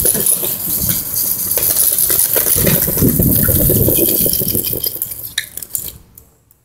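Wind rushing over a handheld phone microphone, with rumbling and rattling from a scooter being ridden; it fades away to near quiet near the end.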